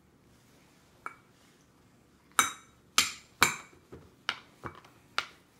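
A baby bangs a plastic spoon down on a high chair tray over and over: about eight sharp knocks at an uneven pace, beginning about a second in.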